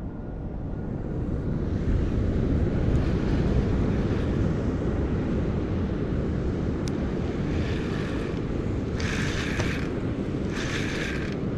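Wind buffeting the microphone over the sound of surf, a steady low rumble. In the second half there are three short hissing bursts, each lasting about a second.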